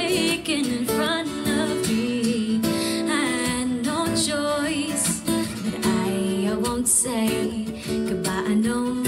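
A song with picked acoustic guitar and a singing voice.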